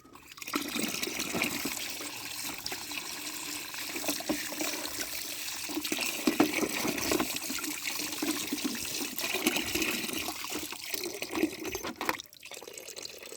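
Running water splashing steadily as muddy plastic toy guns are rinsed clean; it breaks off briefly near the end.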